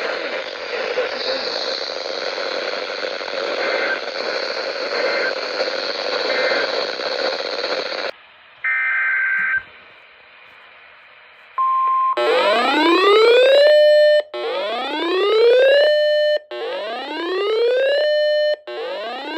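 Weather radio hissing with static, carrying three short data bursts of an alert header. Then a short beep, and the radio's alert siren: four rising whoops about two seconds apart, each climbing in pitch and holding briefly before it cuts off.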